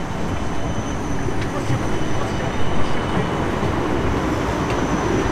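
Tram rolling past close by, a steady rumbling run with a thin high-pitched whine over it, slowly growing louder.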